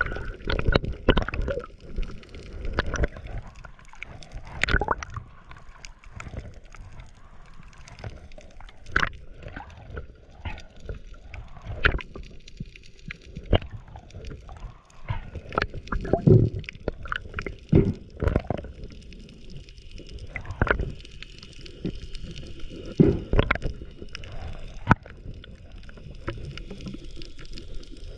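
Water sloshing and gurgling around a spearfisher's camera, with many irregular clicks and knocks.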